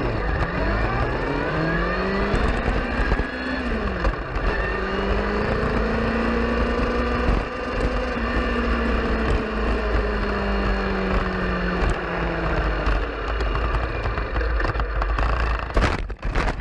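Car engine accelerating hard, its pitch climbing and then dropping at a gear change about four seconds in, then holding a high, steady note over loud road and wind rumble. Near the end come several sharp bangs as the car crashes.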